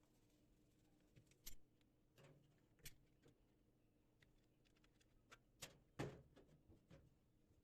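Near silence broken by a few faint clicks and knocks, the loudest about six seconds in.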